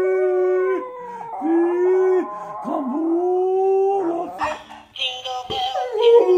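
Small white poodle howling in three long held notes of about a second each, with short breaks between them. About four seconds in it gives way to a jumble of other, shorter sounds.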